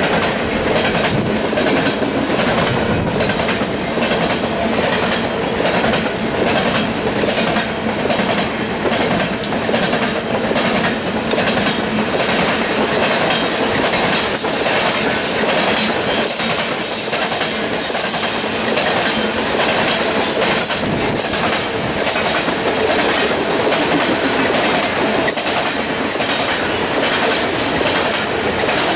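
Coal hopper cars rolling past on steel wheels: a loud, steady rolling noise with repeated clicks as the wheels cross rail joints.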